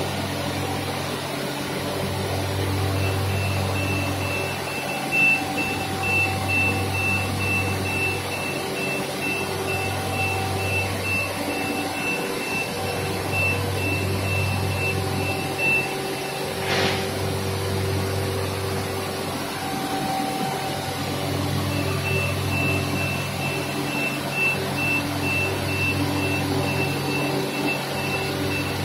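Cosmec Conquest 715 CNC nesting router running through its unloading cycle: a steady machine hum with a low rumble that swells and dips every few seconds. A fast, high, repeated beep sounds for long stretches before and after a short hiss about two-thirds of the way through.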